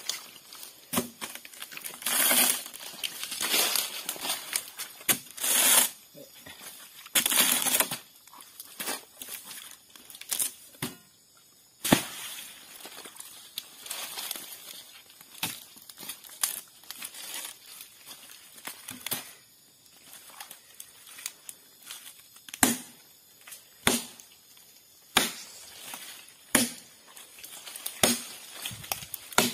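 Work on a felled sago palm trunk: several longer tearing, rasping stretches in the first eight seconds or so, then sharp chopping blows into the trunk, one every one to two seconds.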